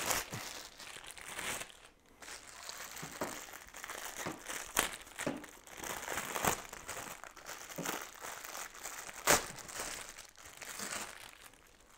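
Packaging crinkling and rustling as it is unwrapped and pulled off a new capsule coffee machine, with scattered sharp clicks and crackles.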